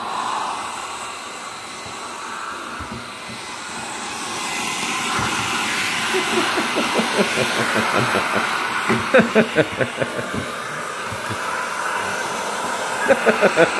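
A 1500-watt air-gun pet blow dryer blowing steadily on a wet dog's coat, its rushing air getting louder about four seconds in. Through the middle and again near the end, a rhythmic pulsing of about five beats a second rises over it.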